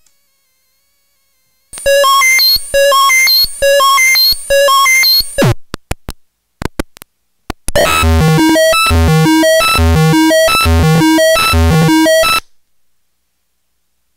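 Homemade circuit-bent noise sequencer playing a looping chiptune pattern of buzzy electronic notes, starting about two seconds in. Midway it drops into a falling sweep and a few glitchy clicks, then returns with a denser pattern over low bass notes before cutting off suddenly.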